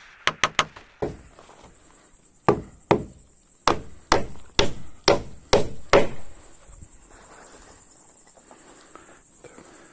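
Hammer driving nails into wood: three quick blows, then after a pause a run of eight blows at about two a second.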